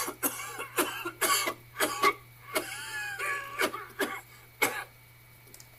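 A man coughing in a long fit, about a dozen harsh coughs over some five seconds, with a rasping wheeze in the middle and the coughing stopping near the end.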